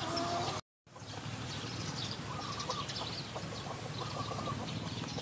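Outdoor field ambience: a steady background hiss with scattered short, high bird chirps, cutting out completely for a moment near the start.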